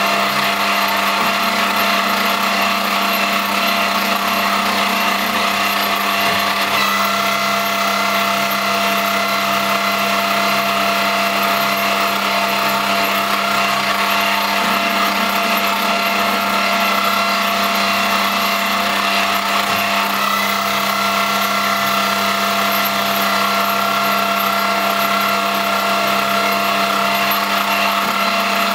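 Homemade CNC lathe on an X3 milling machine running: a steady machine whine made of several steady tones, with a slight change in pitch about a quarter of the way in.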